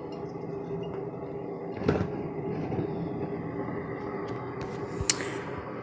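Steady low hum of a single-serve K-cup coffee machine running, with a short knock about two seconds in and a sharp click about five seconds in.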